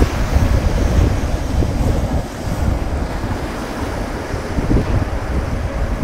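Small waves breaking and washing up a sandy beach, with wind buffeting the microphone in a steady, uneven rumble.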